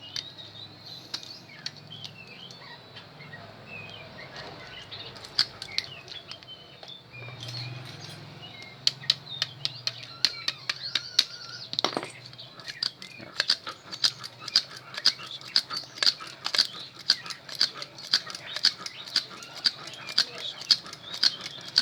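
Winding machine turning a drill armature, making a steady run of sharp clicks at about two to three a second. The clicks start about a third of the way in and grow louder and more regular, over a low hum.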